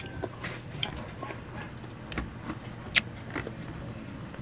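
Children biting and chewing crisp raw green mango (Indian mango), with wet mouth sounds and a few short, sharp crunches and clicks, the loudest about three seconds in.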